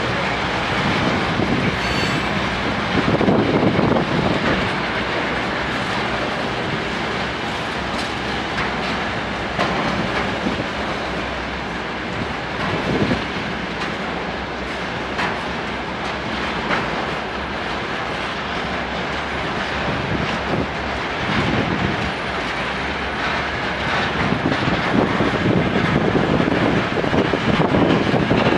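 Freight train of railway tank wagons rolling past, with a steady rumble and louder bursts of wheel clatter now and then as wheelsets cross rail joints.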